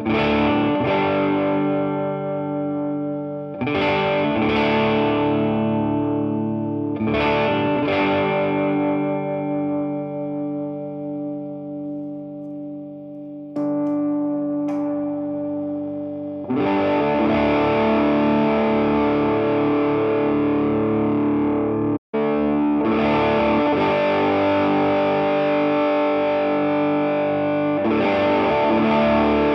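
Overdriven electric guitar chords from a 1973 Greco Les Paul copy with humbuckers, played through a Vox AC30 valve amp pushed by an overdrive pedal. The first three chords are struck a few seconds apart and left to ring and fade. From about halfway, heavier, denser distorted playing follows, cut off for an instant a little past the middle of that stretch.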